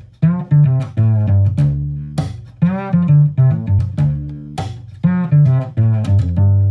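Intro music played on plucked strings: a low bass line under higher, guitar-like notes, each note struck sharply and dying away.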